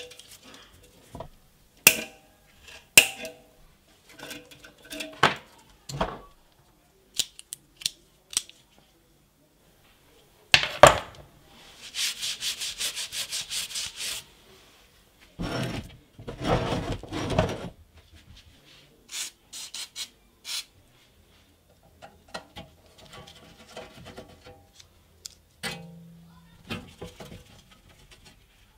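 Parts of a 1969 Iwata Minicom air compressor being handled and taken apart: sharp clicks and knocks of metal parts, then a couple of seconds of rapid, regular rubbing strokes over the metal nameplate followed by a longer stretch of rough rubbing. Near the end a screwdriver works a screw on the belt guard.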